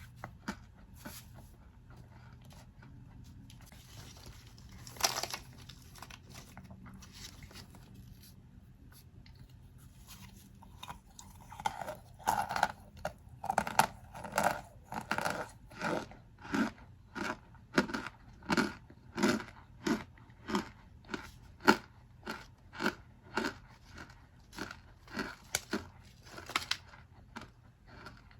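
Packed cornstarch mixed with baking powder being crunched. After a quiet stretch with a few soft clicks and one brief rustle, a steady run of crisp, squeaky crunches comes about every half second to the end.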